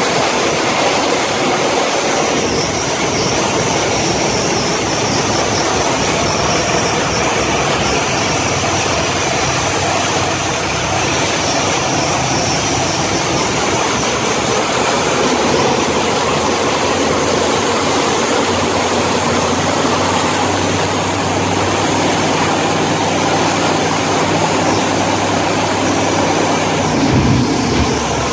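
A Willys drag car's engine running loud as hell at a steady idle, with a short rev near the end.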